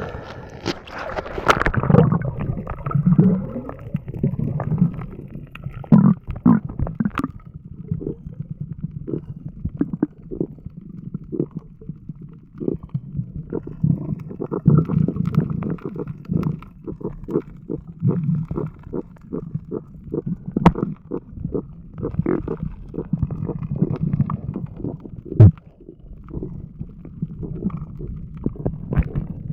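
Muffled water gurgling and sloshing with many irregular clicks and knocks over a steady low rumble, as heard by a camera in the water.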